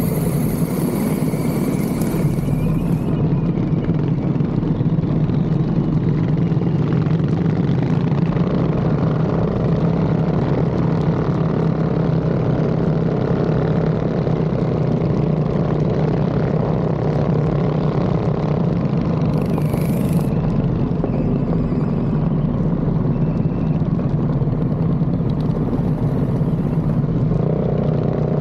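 Mini bike's small single-cylinder engine running at a steady, unchanging pace, a constant drone with no revving.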